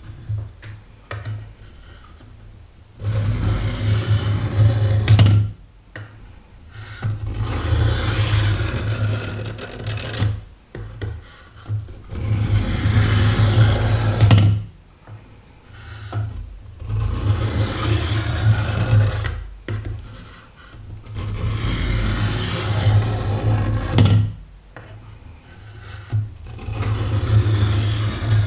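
Knife blade drawn again and again across the sharpening stone of a Work Sharp guided sharpening system: rasping strokes in stretches of a few seconds with short pauses between.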